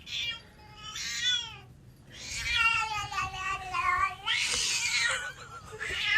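A cat meowing and yowling in several drawn-out calls: a short one, a falling one, then a long wavering yowl of about two seconds, followed by a breathy noisy sound and another call near the end.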